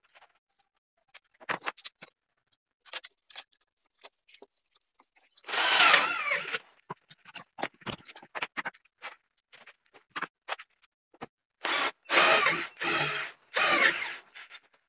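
Handheld power drill with a Forstner bit boring into melamine-faced blockboard through a guide jig, in short spells: one loud spell about six seconds in and three more near the end, the bit cutting with a wavering whine. Scattered clicks and knocks fall between.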